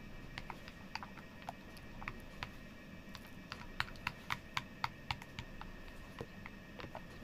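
A plastic stirrer clinking and tapping against the side of a heat-resistant glass bowl while stirring a watery slime mixture. The light, irregular clicks come quickest a little past the middle, with about five sharp ones in a row.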